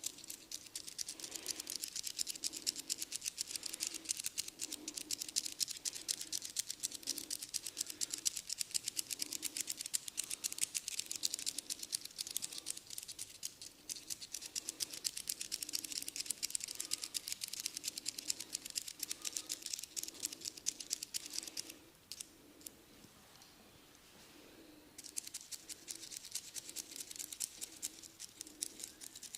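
Head massage on the hair and scalp, close to the microphone: a dense, fast crackling of many fine ticks with a softer rhythmic pulse under it. It stops for about three seconds near the end and then starts again.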